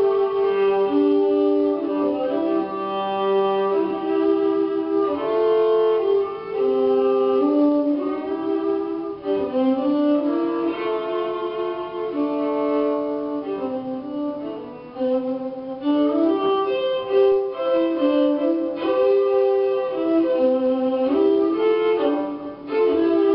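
Solo violin played live with a bow: a melody of held notes, often two strings sounding at once.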